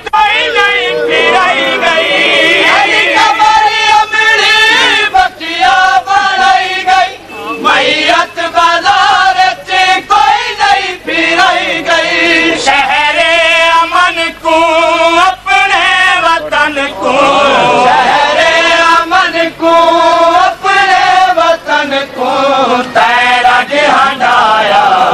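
A noha, a Shia lament, chanted in a long, wavering melody with brief pauses for breath.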